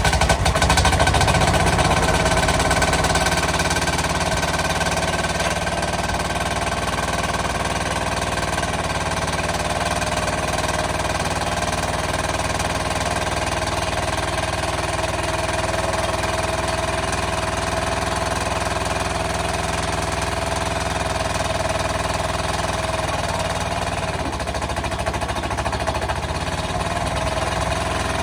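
Caterpillar D13000 six-cylinder diesel engine running with a steady, rapid knock just after a cold start. It is loudest for the first few seconds, then settles to an even run.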